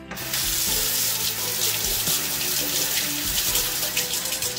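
Kitchen tap running water into a stainless-steel sink while a spoon is rinsed under the stream. The water comes on just after the start and then runs steadily.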